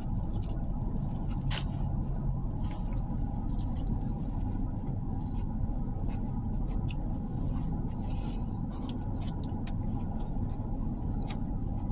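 Steady low hum of a car interior, with many small scattered crinkles and clicks from a paper napkin and sandwich wrapper being handled.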